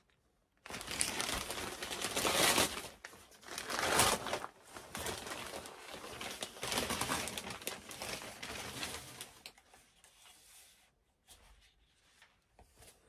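Wrapping paper being torn off a parcel and crumpled, rustling in uneven bursts that are loudest about two and four seconds in and stop about nine seconds in.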